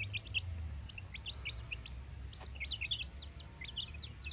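Young chicks peeping: a quick, overlapping run of short, high cheeps from several birds together.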